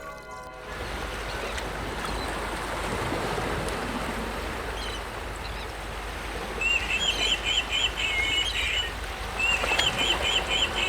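A bird calls twice, each call a quick run of high chirps about a second and a half long, over a steady rushing noise.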